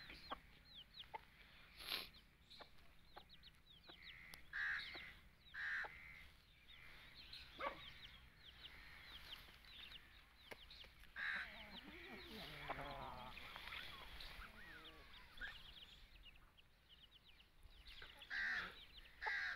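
Aseel chickens clucking in short calls every few seconds, over a constant thin, high chirping.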